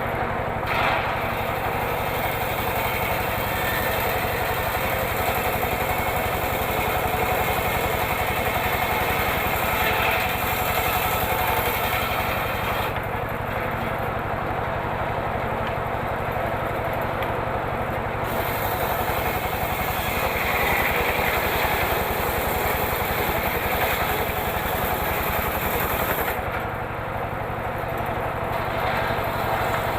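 Homemade engine-driven circular saw running steadily while ripping teak wood. Its higher sound drops back twice, near the middle and near the end.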